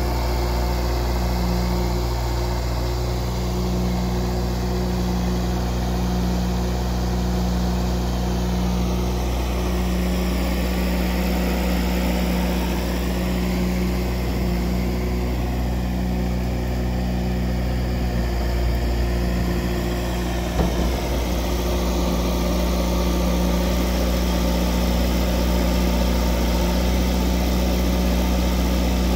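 Elgin Pelican street sweeper's John Deere 4039 four-cylinder diesel engine running steadily while the hopper is raised to dump its load. The engine note shifts slightly about eighteen seconds in, with a short knock a couple of seconds later.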